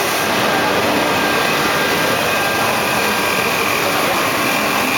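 CNC wood-turning lathe running, cutting a baluster blank: a steady, loud machine noise with a faint steady whine.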